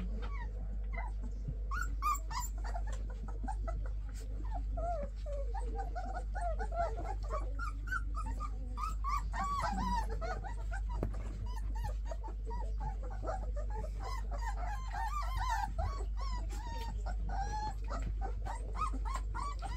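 A litter of three-to-four-week-old puppies whimpering and squeaking: many short, high, overlapping squeals, several a second, over a steady low hum.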